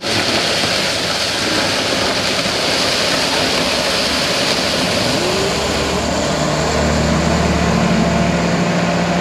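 Commercial high-speed countertop blender switching on abruptly and running at full speed, blending coconut milk with ice into a slushie. A low steady hum joins the motor noise about six seconds in.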